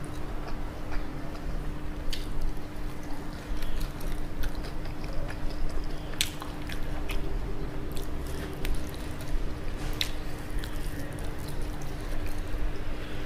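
Close-miked chewing of spicy sauce-glazed fried chicken, with scattered wet mouth clicks and smacks and sticky squishes as fingers pull at the meat. A faint steady hum runs underneath.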